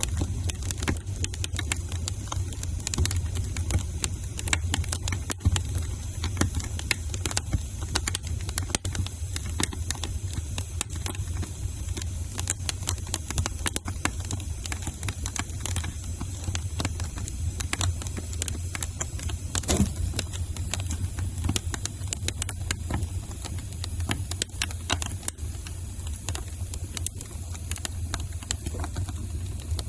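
Wood fire in a fireplace crackling: many small pops and snaps over a steady low rumble of the flames, with one louder pop about two-thirds of the way through.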